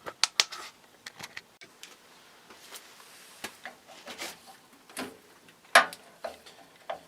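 Screwdriver working a screw out of an old GE box fan motor: scattered light metal clicks and clinks, with a sharp click just before six seconds in.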